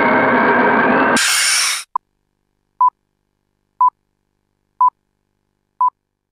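Film-leader countdown beeps: a short pure beep once a second, about five times. Before them, a steady whirring noise with a constant tone cuts off about a second in, followed by a brief burst of hiss.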